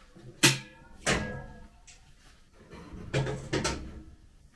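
Two sharp clinks with a short ring, a little over half a second apart, then a cluster of softer knocks about three seconds in: hard tableware being handled and set down on a table.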